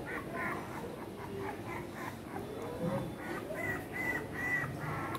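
Pomeranian puppies whimpering: a run of short, high-pitched whines, several each second, with a few longer whines in the second half.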